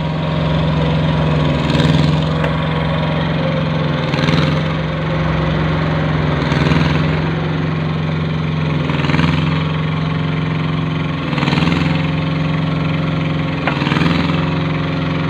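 Small engine of a curb-stone forming machine running steadily, its sound swelling and easing about every two and a half seconds.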